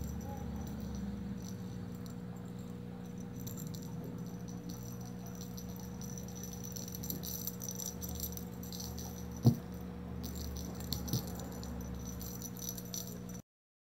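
A small rattle shaken in spells, crisp and high-pitched, over a steady low hum, with a sharp knock about nine and a half seconds in; the sound cuts off just before the end.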